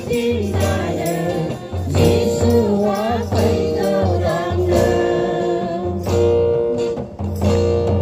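A group of women singing a gospel hymn together, with a double-headed hand drum keeping a steady beat and a harmonium holding notes underneath.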